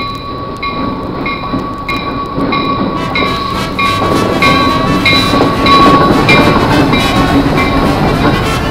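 Diesel locomotive and its passenger cars rolling past, the engine and wheel rumble growing louder until about six seconds in. A bell clangs steadily about twice a second throughout.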